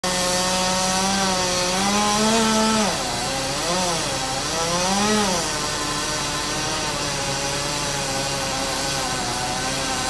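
Chainsaw running at high revs for the first three seconds, then dropping back sharply. It is blipped up twice more and then settles into a lower, steady run.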